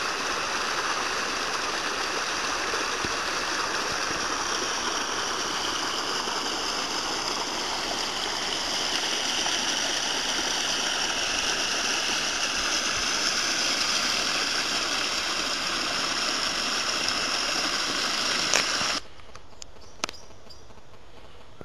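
Steady rush of running water from a stream. It cuts off suddenly near the end, leaving quieter open-air background with a few faint clicks.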